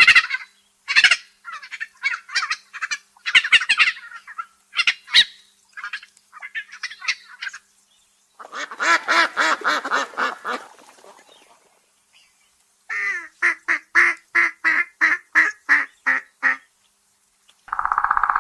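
Bird calls: several seconds of high chirping calls, then two bouts of rapid, repeated honking calls.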